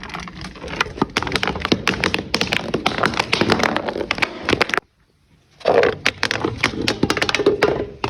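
Brittle material being crushed: a dense run of sharp crunching cracks that stops abruptly about five seconds in, then resumes after a short silence.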